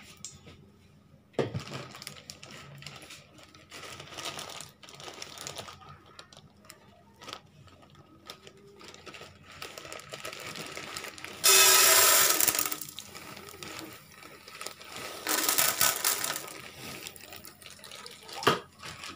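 Dry popcorn kernels poured into an empty stainless steel pan, rattling against the metal in two loud bursts, the first and loudest a little before halfway through. Scattered handling noise and a couple of sharp knocks come around it.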